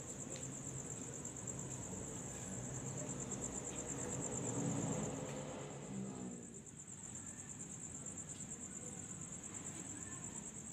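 Crickets trilling steadily, a continuous high pulsing chirr. A low rumble swells underneath about four to five seconds in, then fades.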